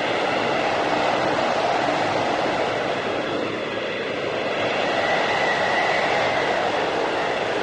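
Blizzard whiteout wind blowing in a continuous rush that swells and eases, with a faint high whistle about five seconds in.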